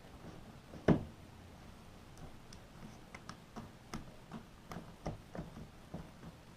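One sharp knock about a second in, then a run of small irregular clicks and taps, several a second: hand tools working on the washing machine water pump's hose clips.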